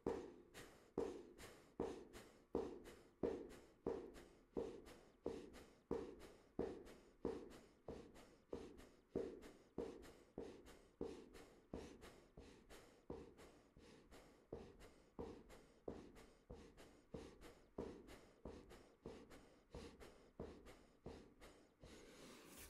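A man's short, sharp breaths out in a steady rhythm, about three every two seconds, each with a pull of the belly in toward the spine. They fade slightly and stop shortly before the end.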